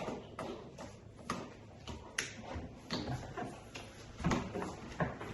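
Small toys being set down and handled on a table: irregular light knocks and clicks.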